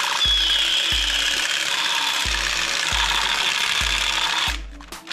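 A battery-powered light-and-sound toy pistol playing its electronic gunfire effect through its small speaker: a rattling rapid-fire burst that opens with a falling whine. It cuts off about four and a half seconds in.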